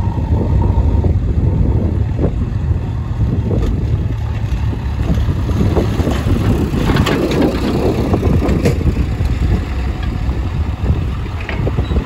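Heavy diesel engine of earthmoving machinery running steadily with a low rumble, with scattered clanks and rattles over it.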